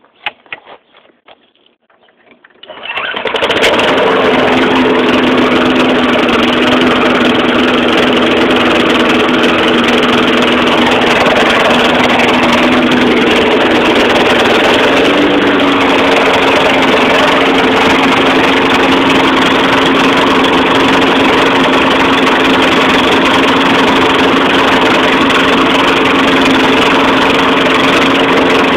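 Craftsman 20-inch lawn mower engine starting after a few short clicks and knocks, catching about three seconds in and then running loud and steady, its pitch stepping up slightly about halfway through. It fires right up with its new primer bulb and air filter and its carburettor bowl cleaned.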